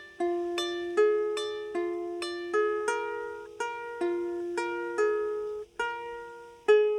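Double diatonic harp played one note at a time, about two plucks a second, in a slow melody, each string ringing on and fading under the next.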